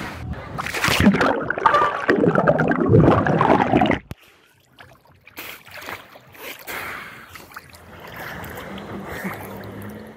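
Sea and wind noise with people's voices on a beach, then about four seconds in a sudden change to quieter water lapping and gurgling at a microphone held at the sea's surface, with small splashes.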